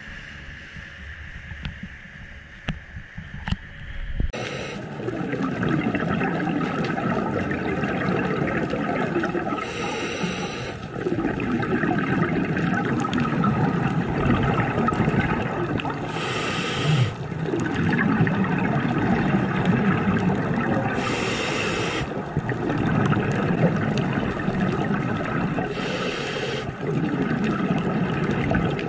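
Scuba diver breathing underwater through a regulator: exhaled bubbles gurgling, with a hiss of breath through the regulator roughly every five seconds. The bubbling starts about four seconds in, after a quieter stretch with a few knocks.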